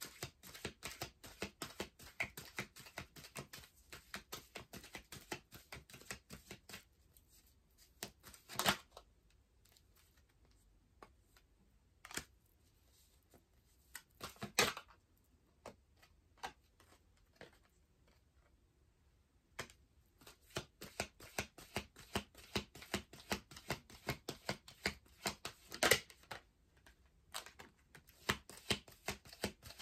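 A deck of tarot cards being shuffled by hand: quick runs of soft card clicks and slaps. The shuffling thins out to a few louder riffles for about twelve seconds in the middle, then picks up again.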